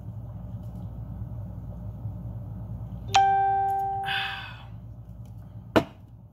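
A single ding or chime about three seconds in, a ringing tone that fades over about a second and a half, over a steady low hum. A sharp knock comes near the end.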